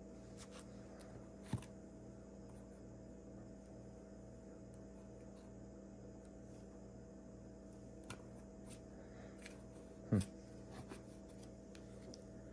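Quiet room tone with a steady low electrical hum, broken by a few faint clicks and taps from handling a stack of Pokémon trading cards, the loudest a short knock about ten seconds in.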